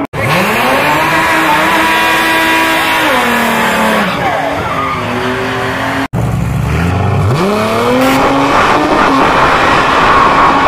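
Drag cars' engines revving hard: pitch climbs steeply and holds at high revs, then drops, twice, with tyres spinning and squealing in a burnout.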